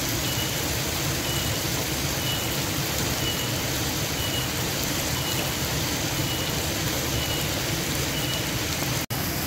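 Spice paste frying in hot oil: a steady crackling hiss. A short, high beep-like chirp repeats about once a second, and the sound drops out for an instant near the end.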